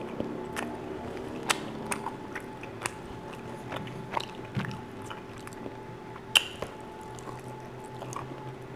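Close-up chewing and biting of crusty baked pizza-dough bread: scattered crisp crunches and mouth clicks over a faint steady hum.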